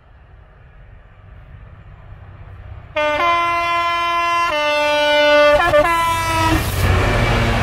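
Class 66 diesel locomotive sounding its two-tone horn: a higher note starts suddenly about three seconds in, then a slightly lower note, stopping about a second before the end. From about halfway the deep rumble of its EMD two-stroke V12 diesel and the wheels on the rails grow loud as it passes close by.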